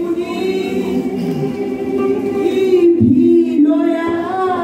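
Voices singing a slow gospel chorus, without instruments, in long held notes. One phrase ends and a new one begins about three seconds in.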